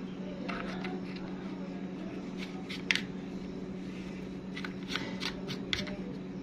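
Black plastic phone-stand parts being handled and fitted together, the arm's ball joint pushed into the phone holder's socket, giving small scattered plastic clicks and rattles. The sharpest click comes about three seconds in, with several more in the second half, over a steady low hum.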